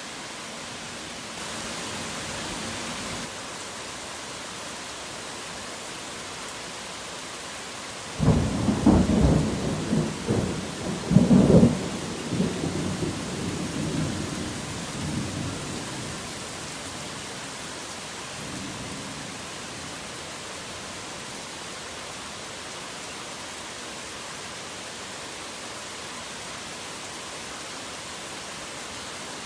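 Steady heavy rain hissing, with a clap of thunder about eight seconds in: a crackling rumble that peaks a few seconds later, then rolls away and dies out after several seconds.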